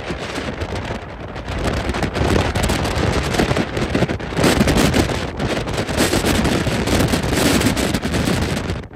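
Gale-force storm wind buffeting the phone's microphone in gusts, over the rush of heavy surf; the wind grows louder about two seconds in.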